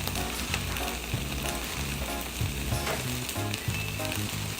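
Bacon sizzling and crackling in a frying pan, a steady hiss with many small pops.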